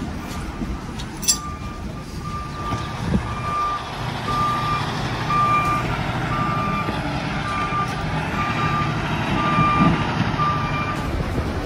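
A vehicle's reversing alarm beeping evenly, a little more than once a second, over the low steady running of an engine and wind on the microphone. A single sharp click about a second in.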